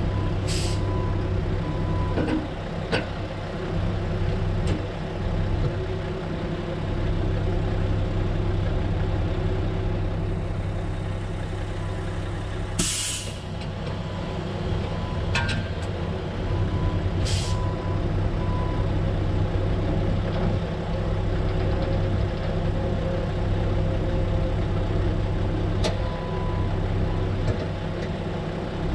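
An engine idling steadily with a low hum, cut by three short hisses and a few light clicks.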